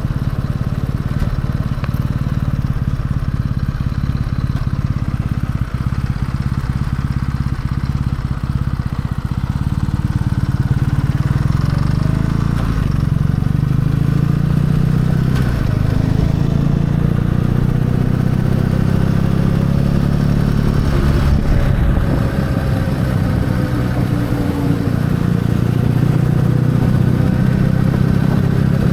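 Kawasaki W650 motorcycle engine running under way, a steady drone whose pitch drifts gently up and down in the second half.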